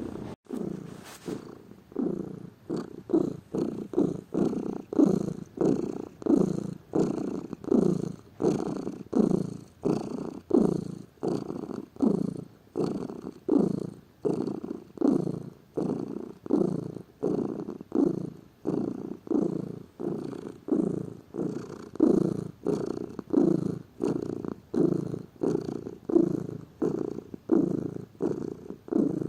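Domestic cat purring steadily in an even rhythm of swelling pulses, after a brief break just after the start.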